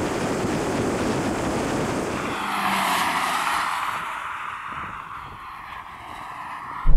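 Cars running flat out in a drag race, engine and road noise rushing past. One car goes by loudest about three seconds in, its engine note falling away as it recedes.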